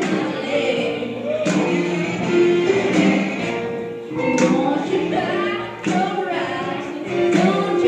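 Blues music with a singer, playing steadily with a regular beat.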